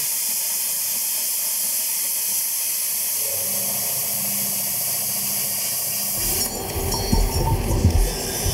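Handheld plasma cutter cutting sheet metal: a steady, even hiss of the arc and its air. About six seconds in the hiss stops and a few uneven knocks and bumps of metal being handled follow.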